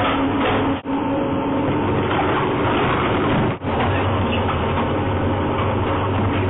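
Industrial multi-shaft shredder running, its rotating cutting discs tearing through the material fed into the hopper: a loud, steady mechanical noise with an underlying hum. The sound cuts out for an instant twice, about one second and three and a half seconds in.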